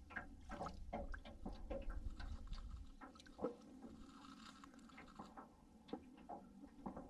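Small waves lapping against the side of a jon boat in irregular light taps and slaps, with wind rumbling on the microphone for the first three seconds.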